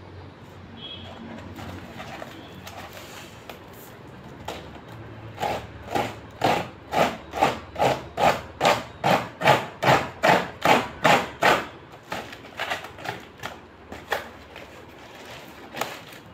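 Cardboard box and thick wrapping of a cricket bat being torn open by hand: a run of short rough strokes, about two a second, starting about five seconds in and lasting some six seconds, then a few weaker scattered ones.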